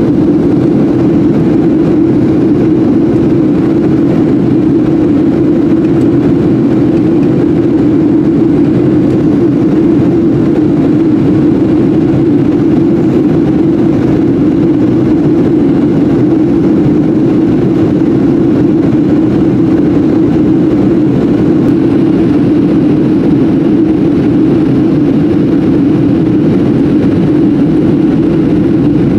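Steady in-flight cabin noise of a Boeing 737-700 with CFM56 engines, a constant loud rush of engine and airflow noise with a strong low hum and no changes.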